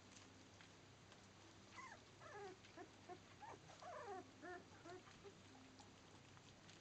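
Very young Labrador puppies whimpering and squealing in a quick string of short, high, up-and-down cries that starts about two seconds in and fades about five seconds in.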